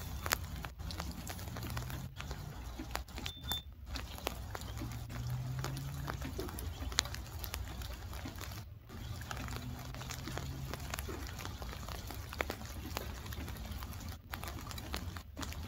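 Rain pattering steadily, with many small drops ticking sharply close by, over a low steady hum.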